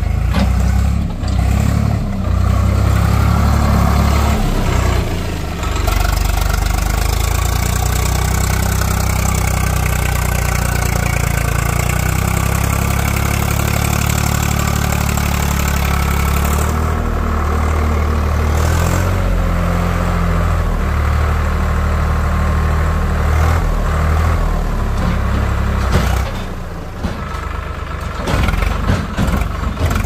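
Swaraj tractor's diesel engine running and revving up and down while towing a trolley loaded with mud. The engine eases off about four seconds before the end.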